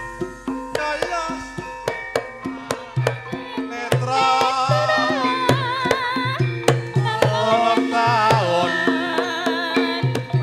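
Javanese gamelan music, instrumental: steady kendang hand-drum strokes under ringing metallophone notes, with a wavering melody line with vibrato joining about four seconds in.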